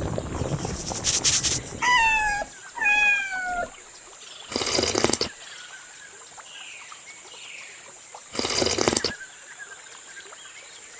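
A cat meowing twice in quick succession, each call sliding down in pitch, after a second or so of rushing noise. Two short bursts of hissing noise follow, a few seconds apart.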